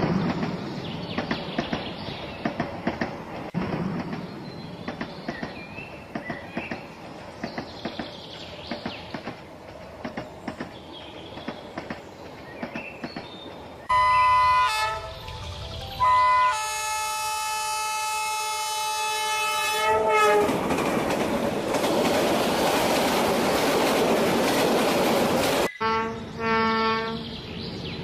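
Toy model train running on its track, its wheels clicking irregularly over the rail joints. About 14 seconds in, a multi-tone train horn sounds briefly, then again for about four seconds. A steady hissing rush follows and cuts off abruptly near the end, after which short horn blasts sound again.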